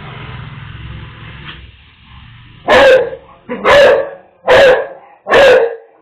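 Dog barking four times in quick succession, about one bark a second, through a security camera's microphone: alarm barks at a jackal it has seen. A low rumble comes before the barks.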